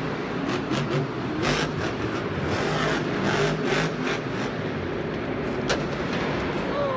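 Monster truck's supercharged V8 revving hard in surges as the truck drives and jumps, with the noisy sound of a stadium arena. A single sharp crack stands out a little before the end.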